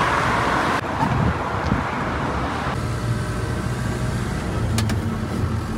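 Mercedes-Benz Unimog's diesel engine running steadily with road noise, heard from inside the cab while driving. A rushing hiss cuts off about three seconds in.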